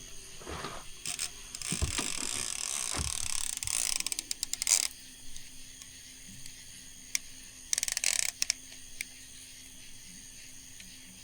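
Fishing reel's clicker ratcheting fast as line is pulled off the spool, a long high-pitched buzz of clicks followed by a shorter bout a few seconds later: the sign of a catfish taking the bait and running.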